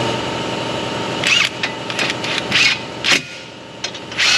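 A cordless power tool with a socket runs the brake caliper bracket bolts in short bursts, starting about a second in, each burst a brief whirr. Before that, a steady mechanical hum is heard.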